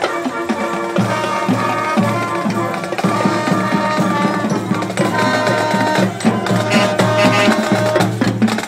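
Youth marching band playing as it marches past: flutes and brass over a drumline of bass drums and tenor drums. A low bass line comes in about a second in.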